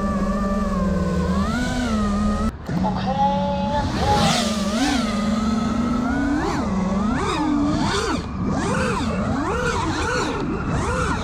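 Five-inch FPV freestyle quadcopter's brushless motors (1960KV, spinning Gemfan Sbang props) whining. The pitch holds steady for the first couple of seconds and cuts out briefly, then swoops up and down again and again as the throttle is punched and chopped through freestyle moves.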